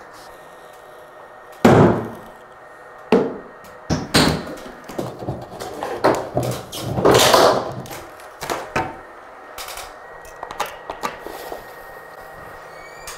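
Crown molding being popped off the wall by hand: a series of sharp knocks and thuds of the trim coming loose, the loudest about a second and a half in, then lighter clicks toward the end.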